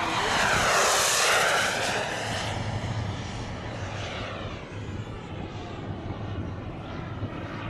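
The twin JetCat P120 gas turbines of a quarter-scale model English Electric Lightning jet making a flyby. A loud jet rush swells to its peak about a second in, with its pitch sweeping as it passes, then fades away.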